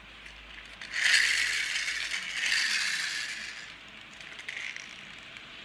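Vintage toy car's all-metal clockwork motor, just wound by one turn of its key, its metal gear train running for about three seconds. It starts about a second in and dies away.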